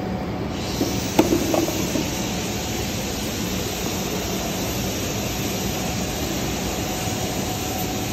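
Steady industrial machinery drone with a high hiss that comes in about half a second in and holds, and a few light metallic clinks a second or two in.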